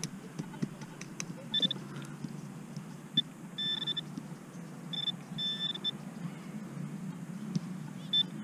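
A handheld metal-detecting pinpointer beeps in short high bursts, some single and some in quicker runs, as it is probed through a dug plug of soil and turf. The beeps signal a metal target close to its tip. Soil and grass rustle softly as they are handled.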